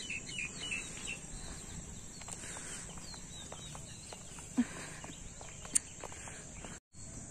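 Steady high-pitched insect chorus, like crickets, with scattered short bird chirps and a couple of sharp clicks. The sound cuts out for a moment near the end.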